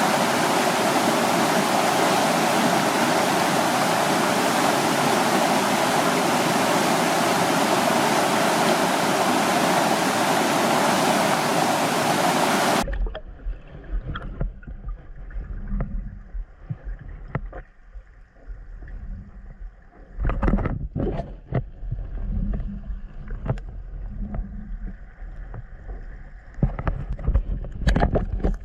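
Mountain stream rushing over a waterfall, a loud steady rush of water, which cuts off abruptly about halfway through. After that comes a quieter low rumble with scattered knocks and thuds.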